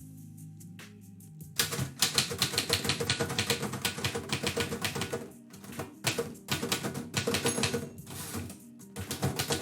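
Typewriter keys striking in fast runs of a few seconds with short pauses between them, over soft background music.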